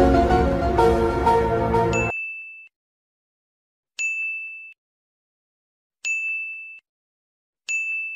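Intro music that stops about two seconds in, followed by four short, bright electronic dings about two seconds apart: the stock sound effects of a subscribe, bell, like and share button animation.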